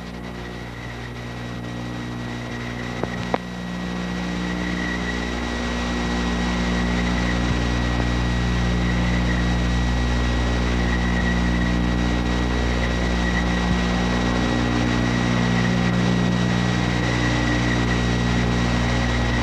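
A steady low hum made of several fixed tones, with a thin high whine and hiss over it, growing a little louder over the first several seconds; one short click about three seconds in.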